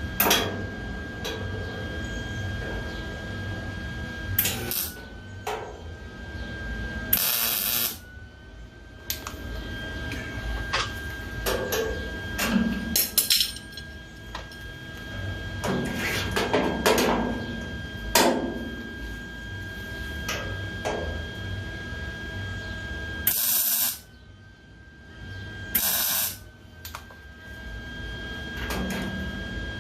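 Three short bursts of welding as tack welds are laid on a car's sheet-metal taillight panel, between them knocks and clatter of vise-grip clamps and metal being handled, over a steady hum.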